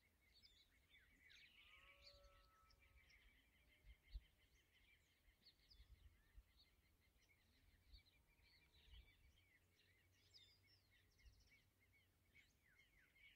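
Very faint birdsong: many small birds chirping over and over, with a few longer calls about two seconds in, over a low rumble with a few soft thumps, the strongest about four seconds in.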